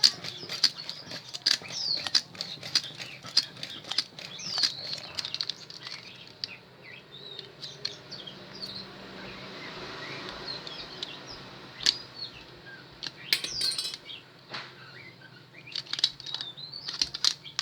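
Small birds chirping over and over, with many sharp clicks and ticks mixed in and a soft hiss about halfway through.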